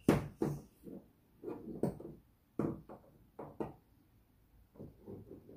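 Wax crayons clattering in a plastic tray as a small child's hand rummages through them: a string of irregular knocks and rattles.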